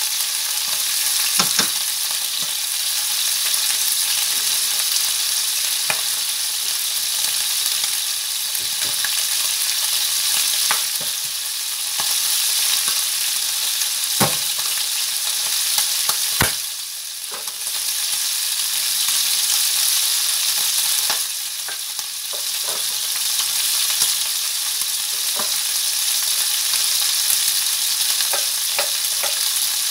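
Parboiled chicken pieces sizzling as they fry in oil in a pan, a steady hiss. Scattered sharp knocks of a knife on a wooden cutting board come through, faster near the end.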